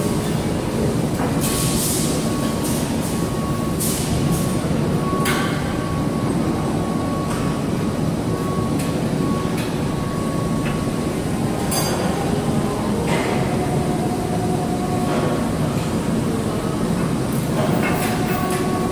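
Loud steady industrial shop noise: a continuous machinery rumble with a faint on-and-off whine and a few scattered metallic clicks and knocks.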